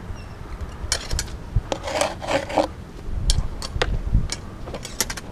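Hand work of measuring and marking a layout: scattered sharp clicks and a rasping scrape about two seconds in, like a tape measure and a marker being worked against wood.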